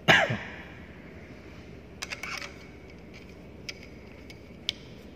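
Hand work on a centrifugal pump shaft and housing. A sudden loud scrape with falling pitch right at the start, then a quick run of light metallic clicks about two seconds in, and two single ticks later as small steel parts are handled and fitted.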